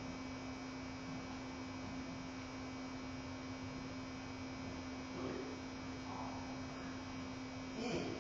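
Steady electrical hum on a single low tone, with a few faint brief noises; the one near the end is the loudest.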